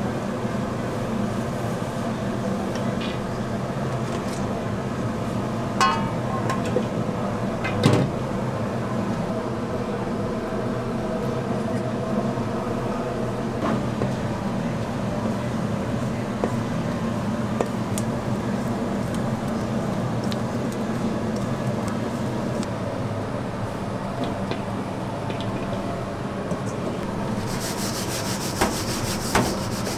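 Steady low kitchen hum, with a couple of sharp metal clinks from the steel bowl and sieve about six and eight seconds in. Near the end, a scratchy rustling of button mushrooms being tossed in panko breadcrumbs in a steel bowl.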